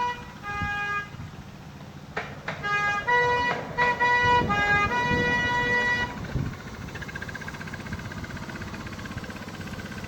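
A horn sounding a quick run of short notes at several different pitches, rather like a tune, for about six seconds. After that a fainter, steady sound carries on.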